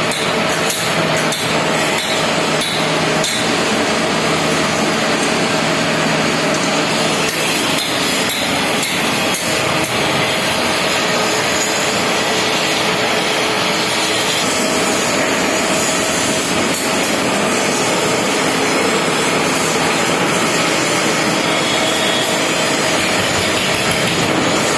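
Heavy-duty steel-bodied woodworking band saw running loudly, steady with a motor hum, its blade sawing wood. Quick rattling knocks in the first several seconds, then an even, steady run.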